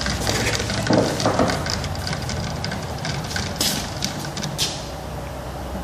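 A small fuel pump runs with a steady hum, drawing a diesel-and-water mix up a hose through a water-separating diesel filter. Scraping and sloshing come from a rod stirring the mix in a plastic bottle.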